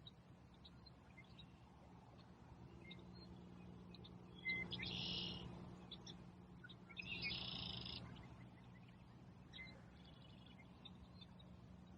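Wild songbirds singing: two loud, high trilled phrases about four and seven seconds in, with fainter chirps between, over a steady low hum.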